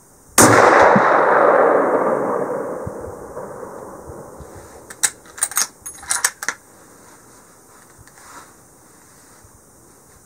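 A single rifle shot from a scoped bolt-action big-game rifle about half a second in, its report echoing and dying away slowly over several seconds. About five seconds in comes a quick run of sharp metallic clicks as the bolt is worked.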